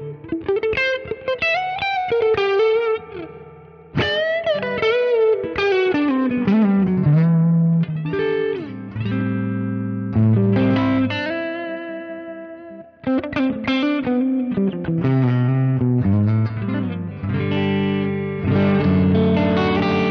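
Leeky X25 electric guitar played on its neck humbucker through a clean amp tone (a Quad Cortex model of a Mesa/Boogie Lone Star). It plays melodic lines with string bends and vibrato, then ringing chords, with brief breaks about four seconds in and again near thirteen seconds.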